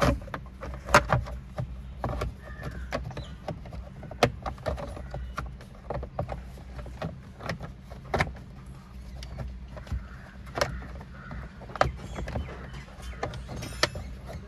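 Irregular sharp clicks and knocks of plastic steering-column cover panels being handled and snapped into place, over a steady low hum.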